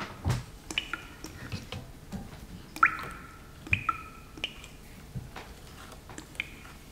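A spoon stirring a watery slime mixture in a small glass bowl, clinking irregularly against the glass; several of the strikes ring briefly.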